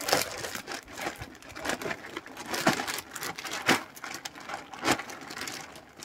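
Plastic sack of potting soil crinkling as it is shaken upside down and soil spills out of it, the rustle peaking with each shake about once a second.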